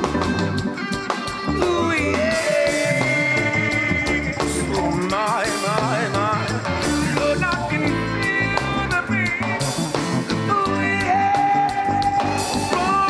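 Reggae band playing live: drums and bass keeping a steady offbeat groove under a lead melody of held and wavering notes.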